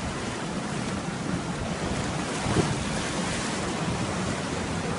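Sea surf washing and breaking, with wind on the microphone; the surge grows louder about halfway through.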